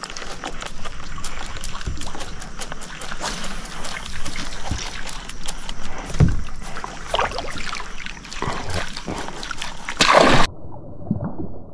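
Water sloshing and splashing against a fishing kayak, with scattered small knocks and clicks. About ten seconds in comes a brief louder rush, and then the sound cuts abruptly to a muffled low rumble.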